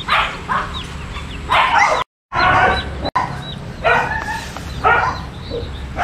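Dogs barking and yipping in short repeated bursts, about six times.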